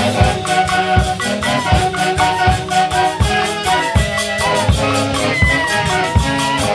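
A Huancayo orquesta playing live: a melody line with pitch slides over a steady percussion beat with shakers.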